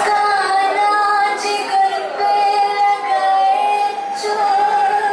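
Song with a woman singing long, held notes that slide between pitches, over musical accompaniment, played for a stage dance.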